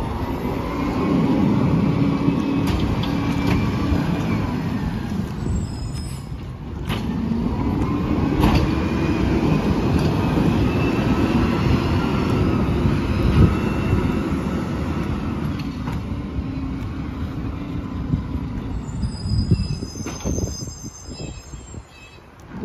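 Diesel engine of a Peterbilt 567 garbage truck revving up twice as the truck pulls away, with a whine that rises and falls over each surge. A brief high-pitched squeal comes near the end.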